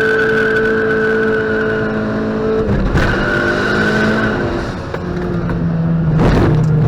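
Dodge Caliber SRT4's turbocharged 2.4-litre four-cylinder pulling hard from a launch, the front tyres squealing with wheelspin through the gears. The engine note breaks at a gear change about three seconds in and drops about five seconds in as the throttle lifts, followed by a short rushing whoosh about six seconds in.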